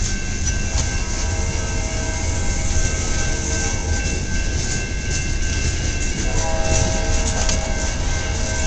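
Coal train cars rolling past at trackside: a steady low rumble of wheels on rail, with steady high-pitched tones over it. A lower tone joins about six seconds in.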